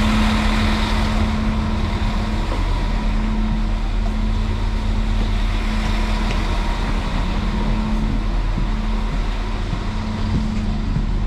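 Red regional railcar standing at the platform with its engine idling: a steady low drone with a constant hum, without a break.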